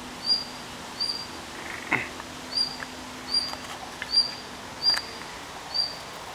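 A bird calling over and over, a short high chirp about every three-quarters of a second, with a couple of faint clicks.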